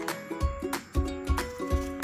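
Background music with a steady beat, about three beats a second, under held melodic notes.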